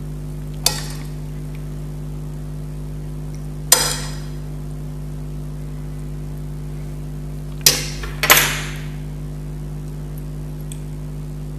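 A metal spoon clinking against the plates four times, the last two close together, each a sharp strike with a short ring, as curry is spooned onto rice. A steady low hum underneath.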